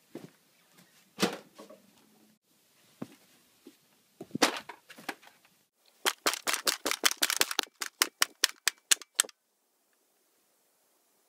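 A few scattered knocks, then a rapid run of about twenty sharp clicks, roughly six a second, that cuts off suddenly into silence.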